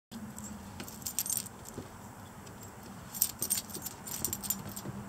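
Metal tags on a mini bernedoodle's collar jingling in three short bursts as the dog moves and turns.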